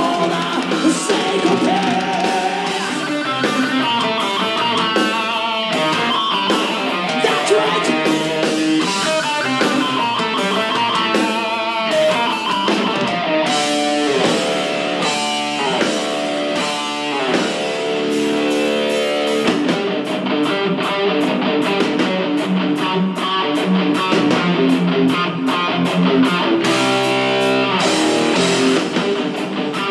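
Heavy metal band playing live: a distorted electric guitar plays fast lead runs over driving drums.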